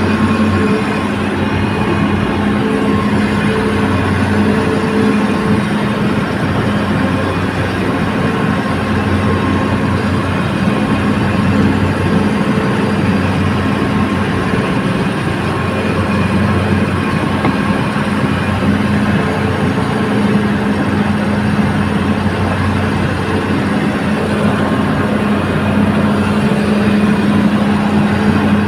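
Heavy diesel machinery running steadily, with a constant low drone and hum that holds without a break.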